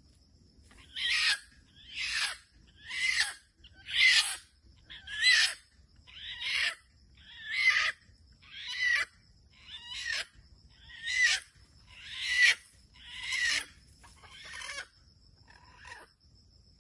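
Red junglefowl calling: a run of about fourteen short, harsh calls, roughly one a second, fading near the end. A steady insect trill runs underneath.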